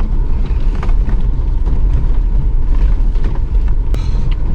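In-cabin noise of a Mahindra Scorpio 4WD driving over a rough, rocky gravel road: a loud, steady low rumble with knocks and rattles here and there as it bumps over stones, a sharp knock about four seconds in.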